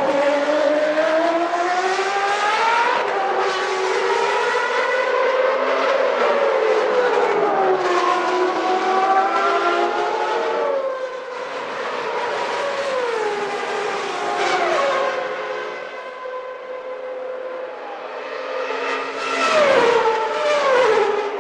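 1991 Formula One cars' engines at high revs, the pitch climbing and dropping repeatedly as they change gear, with more than one engine heard at once. The sound eases off past the middle and swells again near the end.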